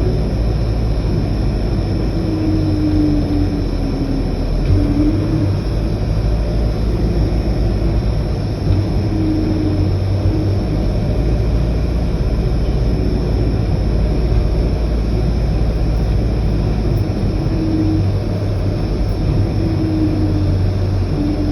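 Steady low rumble of a vehicle driving along a road, with a faint engine tone that rises and falls briefly every few seconds.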